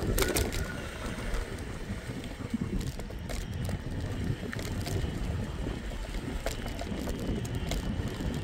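Scooter rolling along a sidewalk: a steady low rumble of the wheels with wind on the microphone, and scattered clicks and knocks over it.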